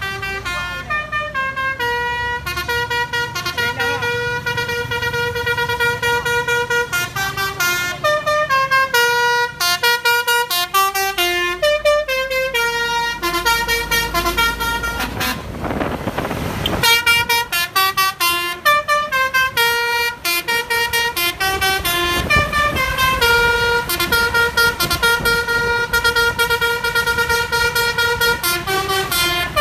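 A bus's basuri telolet horn, a multi-trumpet musical horn, playing a melody note after note almost without a break. About halfway through, a loud hiss of noise lasts a second or two while the tune goes on.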